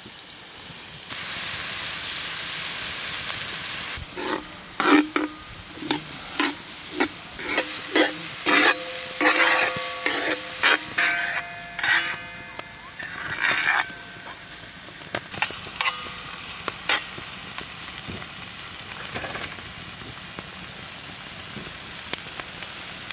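Shredded chicken and onion sizzling in oil in a large metal pan over a wood fire. Through the middle a spoon stirs the pan, with a run of sharp ringing knocks, about one or two a second, as it strikes the pan; the sizzle runs on steadily after the stirring stops.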